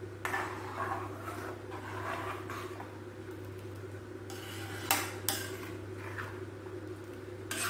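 A metal spoon stirring thick gravy in a metal kadai, scraping and clinking against the pan, with two sharp knocks close together about five seconds in. A steady low hum runs underneath.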